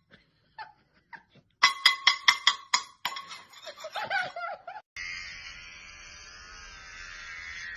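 Metal kitchen utensils clinking together in quick, ringing strikes. About five seconds in, a steady electric buzz starts: a hair-clipper sound played from a phone app through the phone's speaker.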